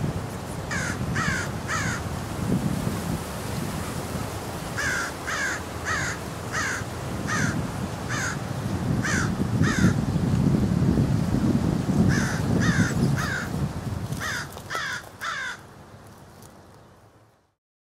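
Crow cawing in runs of three to six harsh calls, about two a second, over a steady low rumble. The sound fades away near the end.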